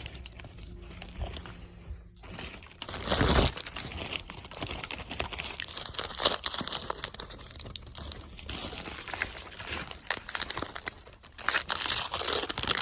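Plastic toy packaging crinkling and rustling as it is opened by hand, in irregular handling noises, with a louder burst about three seconds in and a dense run of crinkles near the end.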